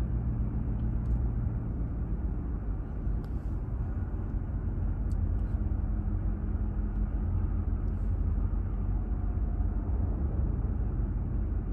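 Steady low rumble of a Ram TRX's supercharged 6.2-litre V8 and road noise, heard from inside the cab while driving.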